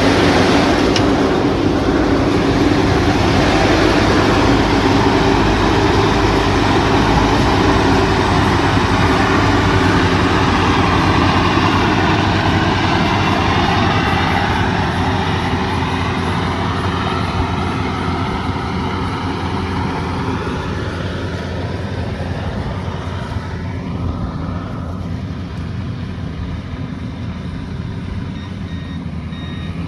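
Heavy farm machine's engine running steadily under load with a broad mechanical rush. It gets quieter and duller over the second half, easing off or moving away.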